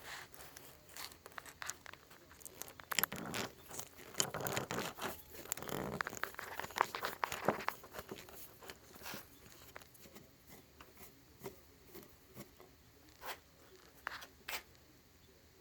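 Hand tool scraping, crunching and clicking against the broken-off plastic bolt of a sump pump, in irregular bursts that are busiest in the first half and thin out to scattered clicks later.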